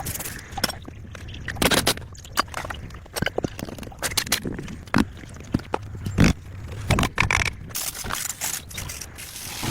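Irregular scraping broken by sharp knocks and clicks, a few a second and uneven in loudness.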